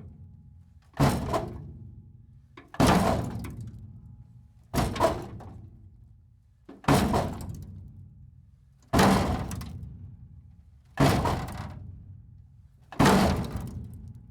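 Metal breaking apart sound effect: seven sharp crashing impacts about two seconds apart, each with a sudden start and a tail that dies away over about a second and a half.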